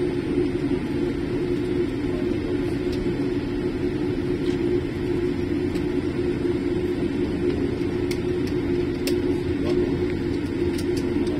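Boeing 787-8 landing rollout heard from inside the cabin: a steady rumble with a constant low hum from engines and wheels as the airliner decelerates on the runway with ground spoilers up. A few faint clicks come about eight seconds in.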